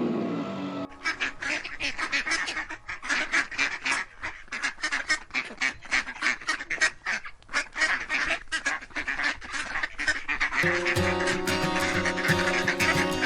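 Many birds calling at once, a dense run of short, overlapping honking calls. Music with steady tones comes in under the calls near the end.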